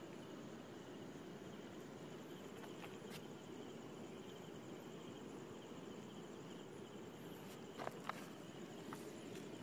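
Faint, steady chirring of night insects, cricket-like, over a low steady rush. A few small clicks break in, one about three seconds in and a couple near the end.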